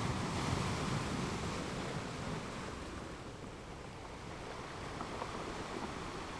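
Sea waves washing onto a rocky shore: a surge of surf that peaks in the first couple of seconds, ebbs away, then builds slightly again.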